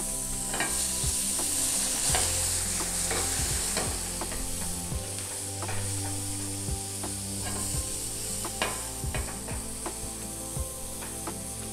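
Marinated tiger prawns sizzling on a hot grill pan, with a steady hiss and scattered clicks and taps of tongs against the pan as they are turned.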